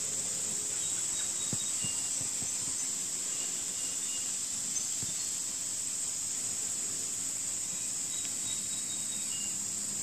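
Steady high-pitched drone of an insect chorus in the background, with a few faint short chirps above it.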